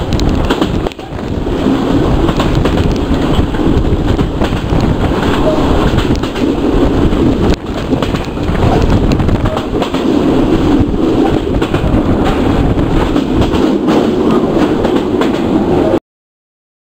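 Benapole Express passenger train running at high speed over steel sleepers: a loud, continuous rumble with the clatter of wheels over the rails. It dips briefly twice and cuts off suddenly near the end.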